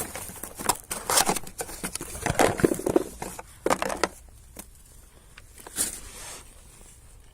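Old and new rubber anti-roll bar bushings being handled and compared: a run of rustles and clicks for about four seconds, then a few scattered clicks.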